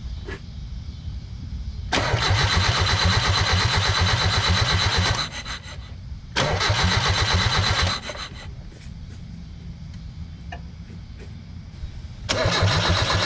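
A 1995 Mazda Miata engine cranking on the starter in three bursts, a long one about two seconds in, a shorter one around six and a half seconds, and another near the end, with an even rapid pulsing each time. It does not catch: this is a no-start engine being cranked while it is tested for spark.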